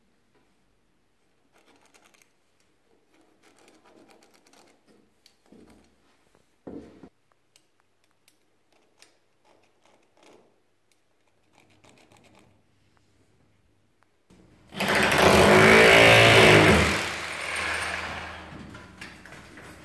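Faint handling noises and a light knock, then late on a cordless drill with a thin bit runs loudly for about two seconds, drilling into the wall, before slowing and fading out.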